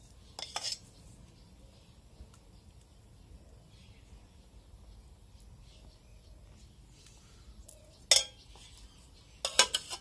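Stainless-steel ladle and dishes clinking: a brief clink about half a second in, a sharper one about eight seconds in, and a quick rattle of several clinks near the end as a steel plate is laid over the steel pot.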